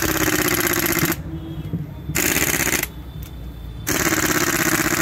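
Pneumatic impact wrench hammering as it tightens bolts on a Hero Splendor Pro motorcycle engine, in three bursts: one that stops about a second in, a short one near the middle, and a longer one starting just before four seconds in.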